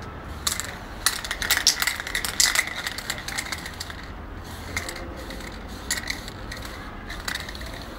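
Aerosol spray-paint can being shaken, its mixing ball rattling in quick clicks, busiest between about one and three seconds in, then a few single clicks.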